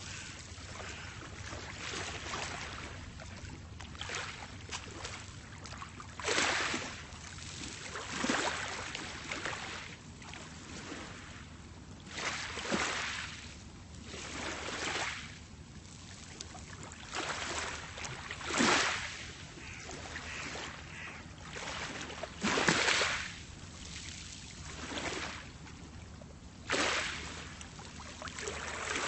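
Small, calm sea waves washing onto a pebble beach: a short surge of breaking water and rattling pebbles every two to four seconds over a steady wash.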